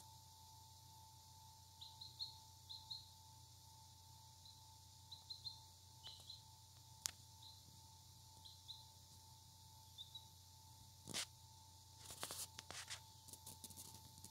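Three-day-old silkie-cross chick peeping: short high peeps, often in pairs, every second or so, over a faint steady hum. Near the end come a brief louder rustle and a quick cluster of clicks and rustles.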